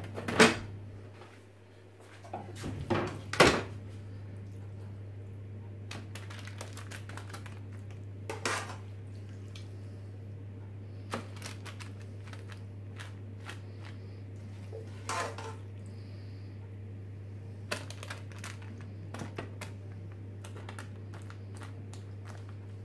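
A spoon knocking and scraping on a plastic food dehydrator tray lined with greaseproof paper as cooked mince is spread over it: scattered knocks and clicks, the loudest about three and a half seconds in, over a steady low hum.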